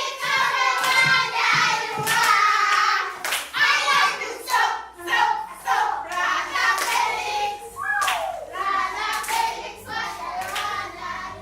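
A group of children singing together while clapping their hands along with the song.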